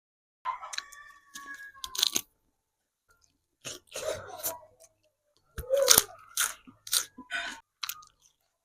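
Close-miked eating: crunchy biting and chewing in three bursts with brief silent pauses between, loudest about two-thirds of the way through.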